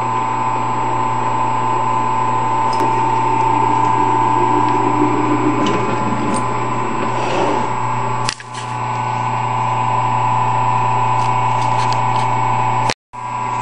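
Converted 10 x 18 wood lathe running steadily, its motor giving a constant hum under a steady whine. The sound dips briefly about eight seconds in and cuts out for a moment near the end.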